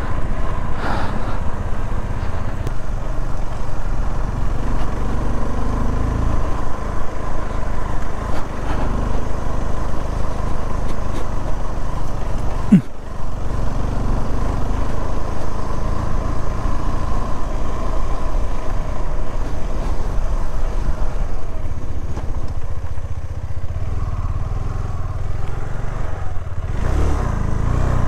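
Single-cylinder engine of a KTM 390 Adventure motorcycle running steadily while riding on a dirt road, heard from the rider's position. A single sharp knock cuts in about halfway through.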